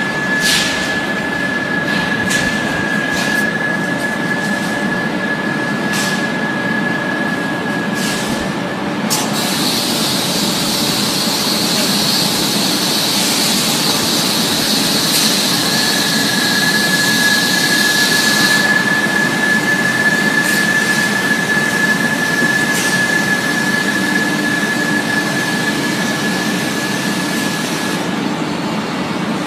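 Harsh noise music built on cicada recordings overlaid with industrial noise: a loud, dense, steady wash of hiss and rumble with a high whistling squeal. The squeal drops out from about nine seconds in, while a higher buzz takes over for about nine seconds before the squeal returns. A few sharp clicks come in the first several seconds.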